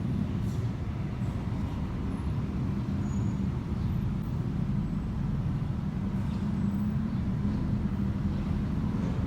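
Steady low rumble of a running engine, with a few faint ticks over it.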